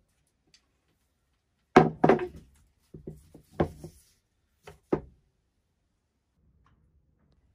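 Knocks and thunks as a stirrup water pump is set down and shifted on a workbench: a loud knock about two seconds in, a cluster of smaller knocks around three to four seconds, and two more near five seconds.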